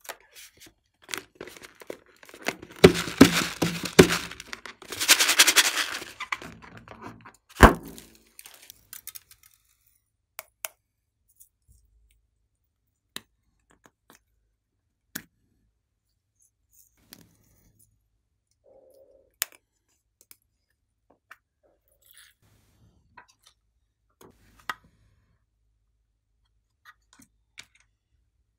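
A long rubber balloon squeezed and torn open, a few seconds of loud crackling noise with sharp cracks as its filling is pressed out over the tray, then a single sharp snap about eight seconds in. After that, only scattered small clicks and taps.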